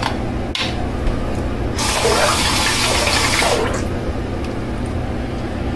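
Water running from a tap for about two seconds, starting and stopping near the middle, with a click shortly before it and a steady low hum underneath.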